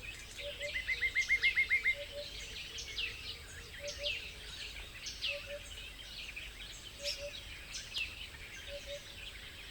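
Several wild birds chirping and calling over one another. The loudest is a fast trill of about ten quick notes near the start. A low doubled note repeats about every second and a half underneath.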